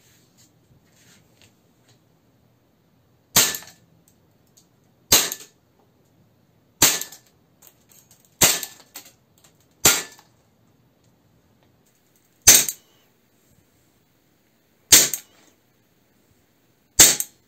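Gas blowback airsoft pistol, an ASG (KJW) CZ Shadow 2, fired single shots eight times, each a sharp crack with the slide cycling, about one and a half to two and a half seconds apart. It is shot first on green gas, then on a CO2 magazine.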